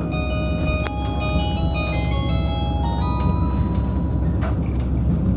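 JR Hokkaido's old onboard chime for the start or end of the line, a short melody of bell-like electronic notes over the train's PA, which stops about three seconds in with its last note held a little longer. The low rumble of the diesel Hokuto limited express running carries on underneath.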